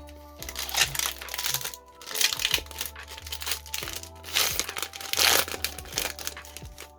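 Foil booster pack wrapper crinkling and tearing open in repeated bursts, over background music.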